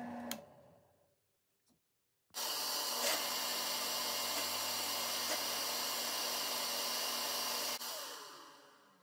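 Craftsman disc sander running while the edge of a white PVC trim block is rounded on its sanding disc. Near the end it is switched off and coasts down, its pitch falling as it fades. In the first second, a drill press motor's hum stops and dies away.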